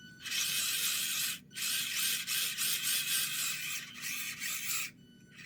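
Axial SCX24 1/24-scale RC crawler's electric motor and gear drivetrain running under throttle, mostly high-pitched, in two runs with a brief stop about a second and a half in, then cutting off near the end. The drivetrain is binding, which the owner puts down to something probably over-tightened.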